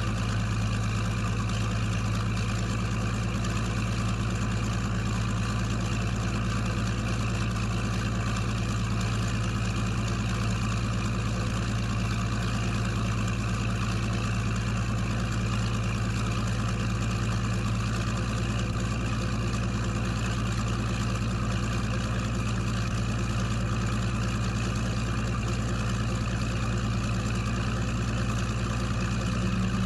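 A steady engine drone with a strong low hum, unchanging in pitch and level.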